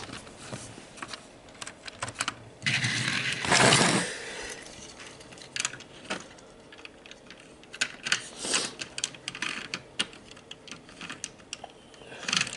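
Small plastic clicks and rattles of HO scale model train cars being handled and set onto the track, with a longer rustling scrape about three seconds in.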